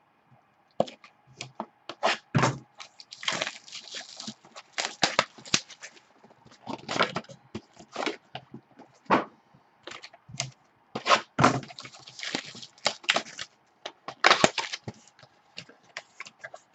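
A Topps Finest baseball card box being unwrapped and torn open by hand: irregular crackling of its wrapping and tearing of the cardboard, in short bursts throughout.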